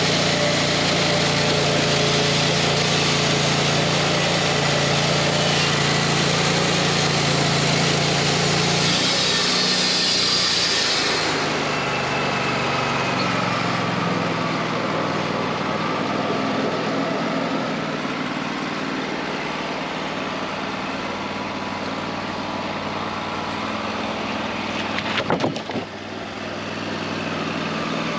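WoodMizer LT40 Wide band sawmill running, its engine steady while the band blade saws through a hickory log with a dense hiss. About ten seconds in the cutting hiss falls away and the engine settles lower. A few sharp knocks follow later on.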